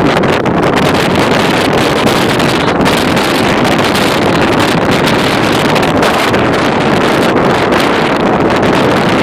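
Strong wind blowing across the microphone: a loud, steady rushing noise with no pauses.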